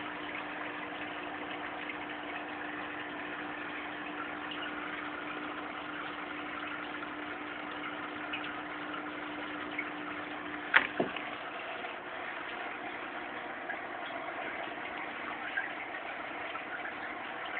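Aquarium air pump or filter humming steadily over bubbling water. About eleven seconds in, a sharp knock and a smaller one just after break in, and the steady hum drops out.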